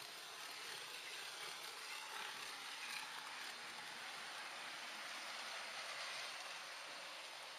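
Steady rushing noise of an H0 model train rolling along the track, picked up by a camera riding on the train.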